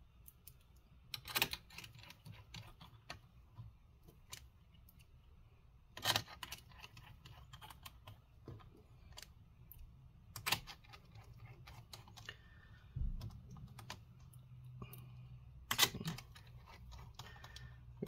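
Scattered small clicks and taps of plastic and metal laptop parts being handled and pressed into place inside an open laptop, with about four louder snaps a few seconds apart.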